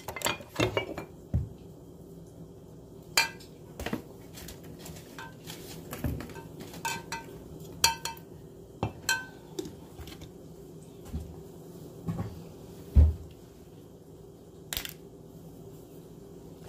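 Kitchen cookware and metal utensils being handled: scattered clinks and knocks, several with a short metallic ring, with a heavier thump about thirteen seconds in. A low steady hum runs underneath.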